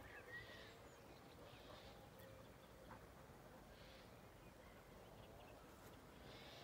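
Near silence: faint outdoor ambience with a few faint, distant bird chirps.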